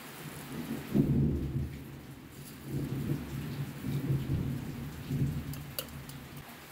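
A low rumble swells and fades in several surges. A light click or two comes from peppercorns being spooned out of a jar into a bowl.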